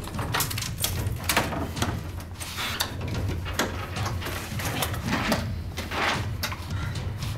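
A wooden door pushed open and a dresser drawer pulled out and rummaged through: scattered knocks, clicks and rustles.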